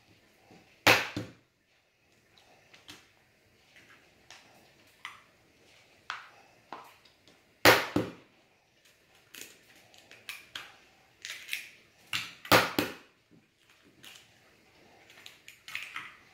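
Eggs being cracked against the rim of a glass: three sharp knocks, about a second in, near the middle and about twelve seconds in, with lighter clinks and taps of glass and shell in between.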